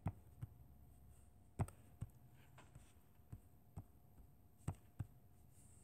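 About ten light, irregular taps on a tablet touchscreen as brush strokes are drawn in a drawing app, over faint room tone.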